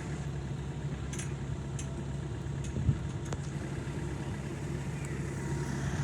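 Motor vehicle running with a steady low drone and rumble, with a few light clicks and one sharper knock about three seconds in.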